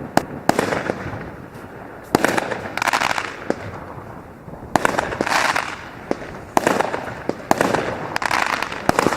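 Consumer firework battery (cake) firing shots one after another, roughly every one to two seconds: each a sharp bang followed by a noisy burst lasting about a second.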